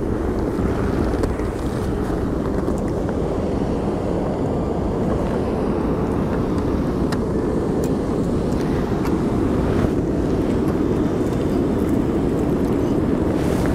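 Steady rush of water pouring over a low dam weir, mixed with wind on the microphone, with a few faint clicks.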